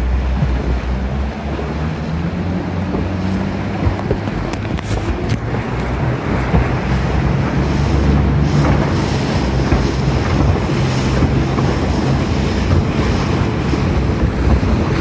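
Motorboat engine running steadily under way, with water rushing along the hull and wind buffeting the microphone; the wind hiss picks up about halfway through.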